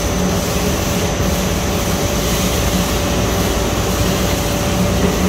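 ABA plastic film production line running: a loud, steady machine hum with a few constant tones, one low and others higher, over an even rushing noise.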